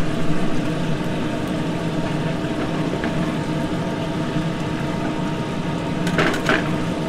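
Steady mechanical hum of a commercial kitchen exhaust fan over a lit gas range. A couple of short metal clinks about six seconds in.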